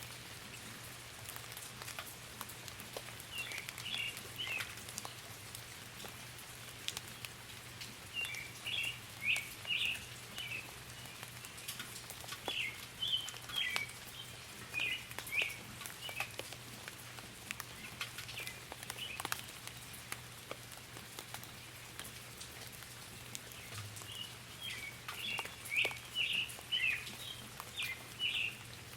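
Light rain pattering, with scattered drops ticking, and songbirds chirping in short bursts of quick high notes that come and go every few seconds.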